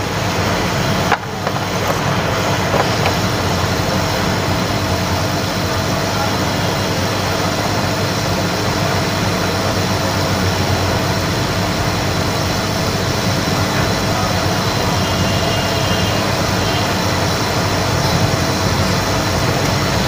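Hot-air SMD rework station blowing a steady rush of hot air through its nozzle onto a phone circuit board, reflowing a chip in flux paste. The air noise carries a steady hum and dips briefly about a second in, then holds steady.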